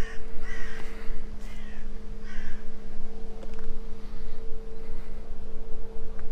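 A bird calling outdoors: three or four harsh calls, roughly one a second, that stop after about two and a half seconds. A steady low hum runs underneath.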